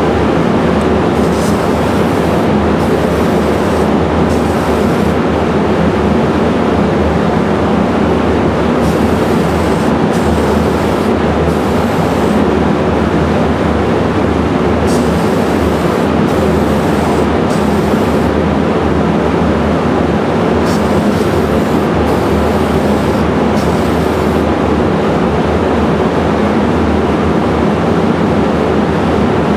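Spray-booth exhaust fan running loudly and steadily, pulling paint fumes out of the room. Over it, an aerosol can of primer sprays in short hissing passes, in four groups of about three bursts each.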